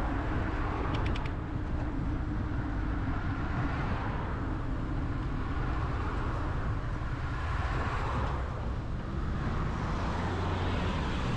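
Bicycle dashcam audio riding along a street: steady wind rumble on the microphone with passing car traffic, and a few light clicks about a second in.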